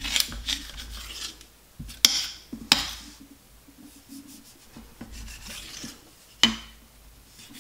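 Chef's knife cutting through a stack of thin wonton wrappers on a stone countertop: rasping, scraping strokes, then three sharp knocks as the blade strikes the counter, about two seconds in, a moment later, and near the end.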